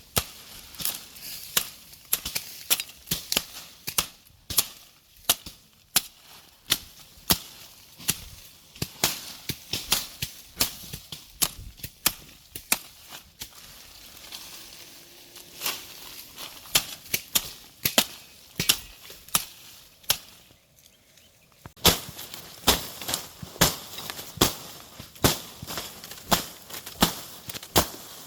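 Repeated chopping strokes of a hand tool clearing ground for yam planting: sharp hits at about one to two a second, with a brief pause about 20 seconds in before the strokes resume.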